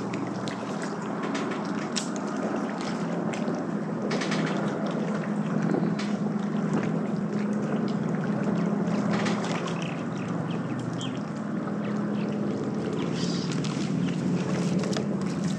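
Water splashing and trickling along a kayak's hull as it moves on the lake, over a steady low hum.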